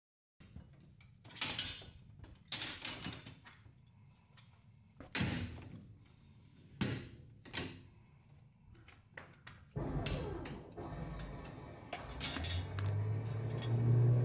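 Several short, loud scraping and tearing sounds from work on a hanging bison carcass. A steady low hum from a machine starts near the end.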